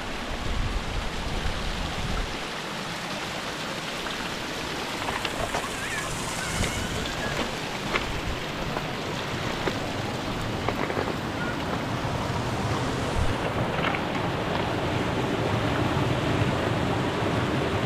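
Steady rushing noise of flowing or falling water, with wind buffeting the microphone in the first couple of seconds.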